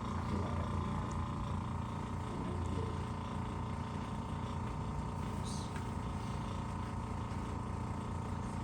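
A steady electric-motor hum with several held tones, running evenly and cutting off at the very end.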